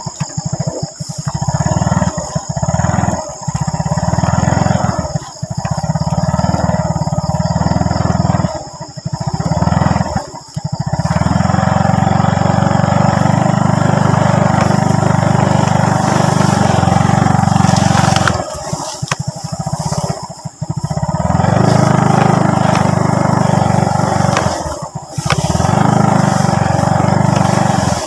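Motorcycle engine running under way, its sound falling away briefly and picking up again several times as the throttle eases off and comes back on.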